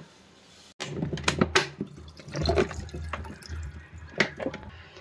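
Salted, turmeric-soaked bitter gourd pieces and their liquid tipped from a jar into a steel mesh strainer in a sink. The wet pieces drop with irregular knocks and splashes, starting about a second in.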